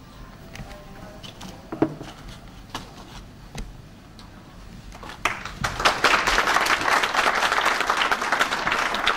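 Audience applauding, beginning about five seconds in and holding steady to the end. Before that the hall is quiet apart from a few scattered clicks and one short sharp sound near two seconds in.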